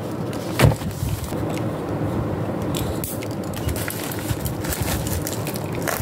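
Black plastic bubble mailer crinkling and rustling as it is handled and slit open with a utility knife, with many small clicks. There is one louder knock about half a second in.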